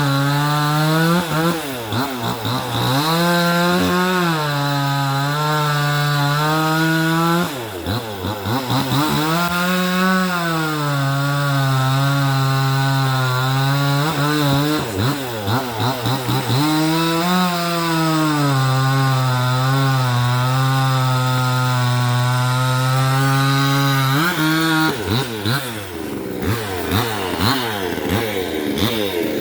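Vevor 62cc two-stroke chainsaw with a 20-inch bar cutting through a fallen tree at high revs. Its engine note dips several times as the chain loads up in the wood, then climbs back. Near the end the steady note breaks off into a rougher, uneven sound.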